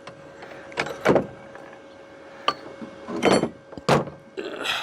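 Several short knocks and scrapes of metal being handled, a few with a brief metallic ring, over a faint steady hum.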